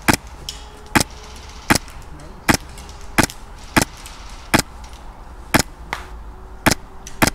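Suppressed HPA airsoft rifle (Krytac Trident MKII SPR on a Polarstar F2 engine) firing ten sharp semi-automatic shots, a little more than one a second and slightly uneven in spacing.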